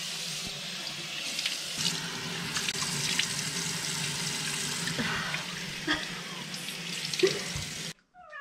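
Water running from a tap into a sink, with splashing as faces are rinsed of a clay mask. The tap is shut off and the flow stops abruptly near the end, and a cat meows just after.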